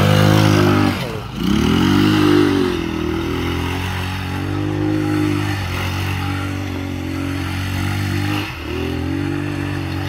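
Engine of a 250 cc quad bike (ATV) running under throttle as it is ridden. Its pitch rises, drops sharply as the throttle eases off about a second in, climbs again, and then holds fairly steady, with another brief dip near the end.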